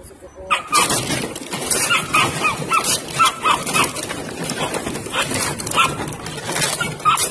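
Belgian Malinois puppies yipping and barking, many short high calls in quick succession, starting about half a second in.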